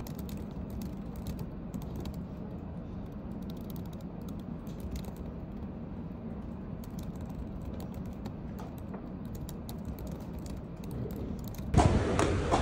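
Typing on a laptop keyboard: rapid, irregular key clicks over a low, steady background hum. About a second before the end it cuts to louder outdoor background noise.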